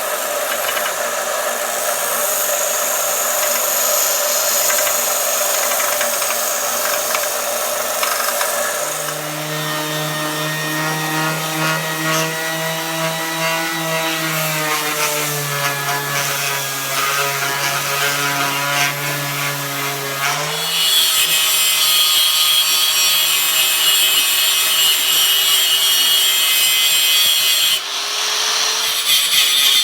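4.5-inch angle grinder with a thin cut-off disc cutting into a metal bar. The motor whine sags in pitch as it is pressed into the cut, and a harsh grinding hiss takes over for the last several seconds.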